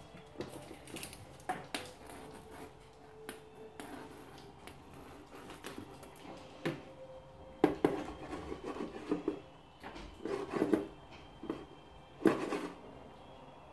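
A kitten playing at a cardboard box and plastic tray: claws scratching and scrabbling, cardboard rustling, and irregular light knocks and scrapes. The loudest bursts come in the second half.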